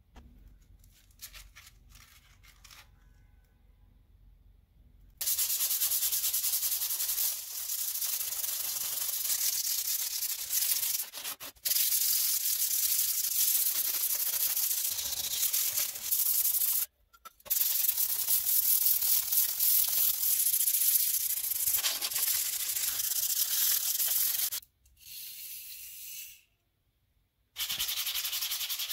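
Sandpaper rubbed by hand back and forth along a steel handsaw blade, scouring off rust. A steady rasping begins about five seconds in and runs in long stretches, broken by a few short pauses and a quieter spell near the end.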